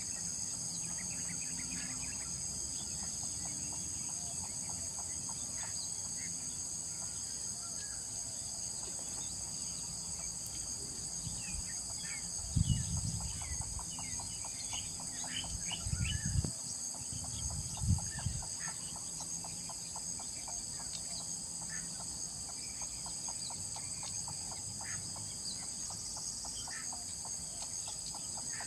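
Pond-side ambience: a steady high insect drone with scattered short bird chirps and a rapid clucking call. A few low bumps come around the middle.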